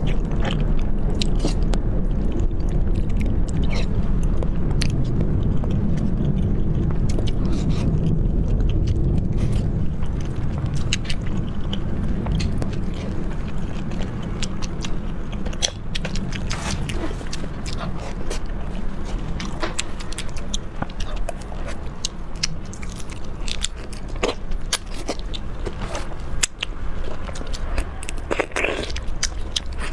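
Close-miked eating: a person biting and chewing soft food, with many short wet clicks and smacks, over a steady low hum.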